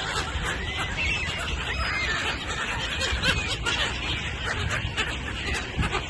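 A flock of gulls calling: many short, high squeals that rise and fall, overlapping, over a steady background din.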